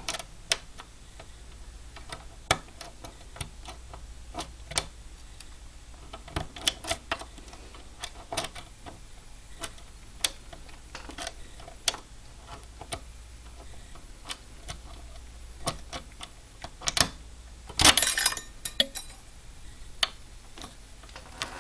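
Small metal clicks and scrapes of a diamond pick and tension wrench working the pins of a 5-pin Kawneer mortise cylinder during single-pin picking, at an uneven pace, with a louder clatter of clicks a few seconds before the end.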